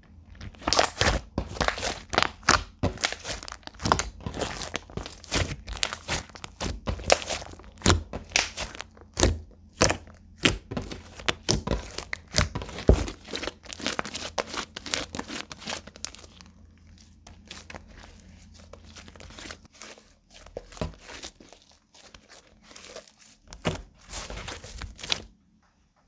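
Clear slime mixed with eyeshadow being kneaded and squished by hand, giving a dense run of sticky clicks, pops and crackles. The crackling thins out and softens after about sixteen seconds and cuts off shortly before the end.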